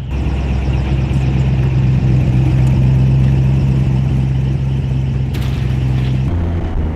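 Airboat engine running steadily with a deep, even drone; it drops in pitch about six seconds in as the throttle comes back.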